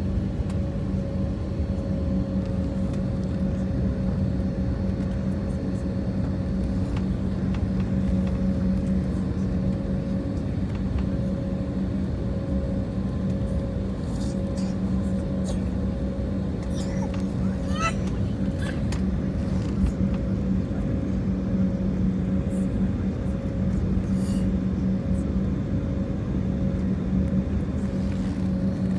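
Airliner jet engines running at low taxi power, heard inside the cabin: a steady rumble with an even, unchanging hum over it.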